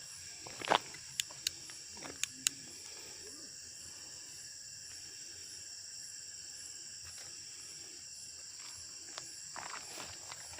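Night insects, crickets, trilling in a steady high-pitched chorus, with a few footsteps in the first couple of seconds.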